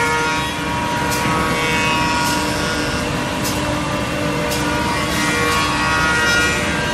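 Woodworking machinery running in a steady hum and whine, led by a CNC tenon milling machine's spindle motors, with a sharp wooden clack about once a second.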